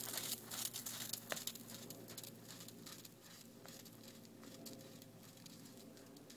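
A horse's hooves on a sand arena, a run of soft irregular footfalls at a trot that fade away over the first few seconds.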